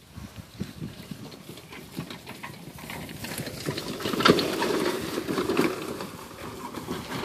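A steel garden dump cart rattling and clattering as it is pulled across grass, along with footsteps. The clatter builds to its loudest a little past the middle.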